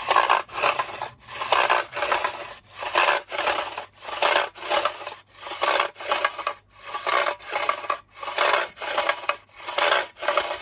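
Repeated to-and-fro rasping strokes, in pairs about every second and a half, as a freshly lubricated mower part that had been slipping and not pulling out properly is worked back and forth.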